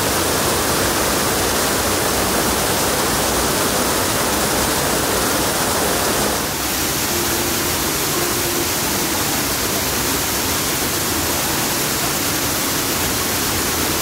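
A loud, steady rushing noise without distinct events, shifting slightly about six and a half seconds in.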